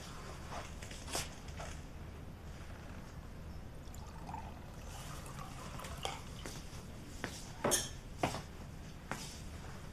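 Water poured quietly from a glass jar into a ceramic mug, with several light clinks and knocks, the loudest two about three quarters of the way through.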